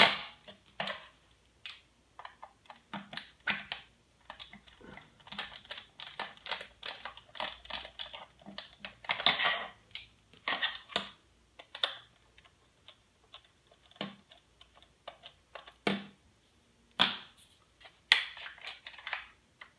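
Irregular small clicks and short scraping rasps of a screwdriver and hard plastic: the battery-cover screw on a toy quadcopter's transmitter being worked loose and the cover handled.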